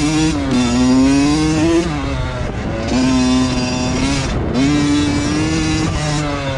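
Two-stroke dirt bike engines running close by: one held at raised revs that dip and climb, falling off briefly about two seconds in and again around four seconds in, while a second engine runs steadily at a lower pitch underneath.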